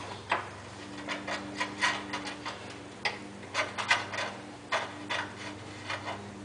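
A steel bolt being worked by hand through the holes of a steering brace and frame rail, rubbing and scraping against the metal with irregular sharp clicks.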